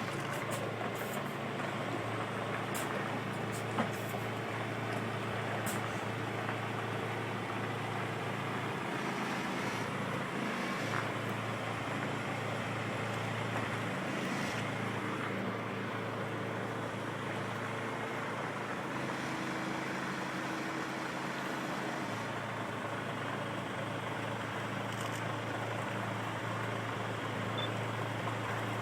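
Steady low drone of a heavy road-haulage truck's diesel engine moving a Shinkansen car, with a few faint clicks in the first six seconds.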